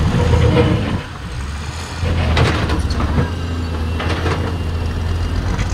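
Heavy diesel engine, likely the bulldozer working the site, running steadily at a low pitch, with a few short knocks in the middle.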